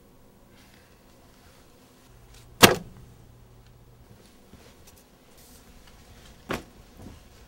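Two sharp thumps about four seconds apart, the first much louder, over quiet room tone.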